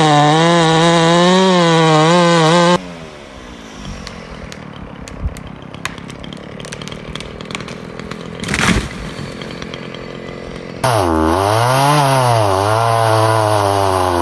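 Chainsaw running, its pitch rising and falling as the throttle is worked, then cutting off abruptly about three seconds in. A quieter stretch of scattered clicks and a brief rushing noise follows, and the chainsaw is heard running again, revving up and down, for the last few seconds.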